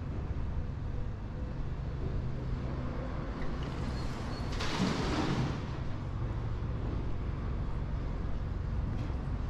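City street traffic: vehicle engines running with a steady low rumble, and a brief louder whoosh about halfway through as a vehicle goes by.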